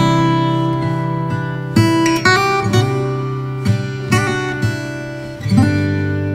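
Background music: an acoustic guitar strumming chords, a new chord struck every second or two.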